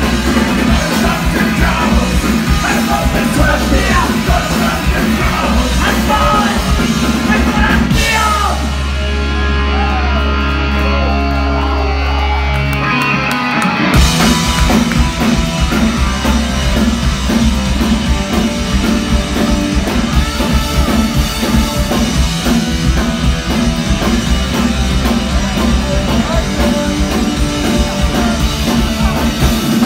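Oi!/street-punk band playing live and loud through a PA: electric guitars, bass, drums and saxophone. About eight seconds in the band drops out to a held low bass note, and the full band crashes back in around fourteen seconds.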